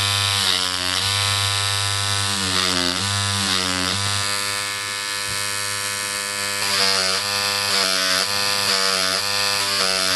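Dragonfly X2 rotary tattoo machine running with a steady electric buzz, its pitch dipping briefly several times as the needle is pushed against. Its give is set to three full turns, the maximum, so the needle yields noticeably under pressure.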